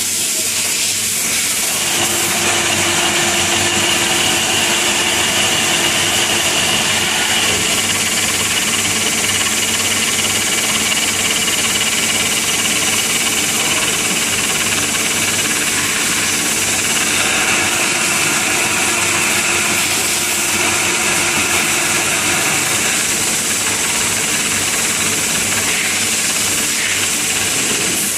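A machine running steadily, a continuous hiss with a few faint steady tones through it.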